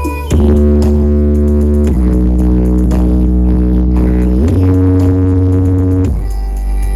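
Very loud music from a carnival sound system, dominated by heavy, sustained deep bass notes. Each note is held a couple of seconds, then steps or slides to a new pitch, about three times.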